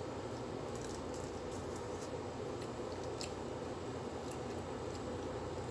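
Eating by hand: fingers picking at food and chewing, heard as scattered small, sharp clicks and smacks over a steady room hum.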